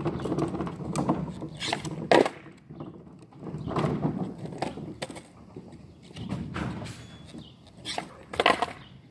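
Skateboard on asphalt during trick attempts: the board slaps down sharply about two seconds in and again near the end, between stretches of low rumbling.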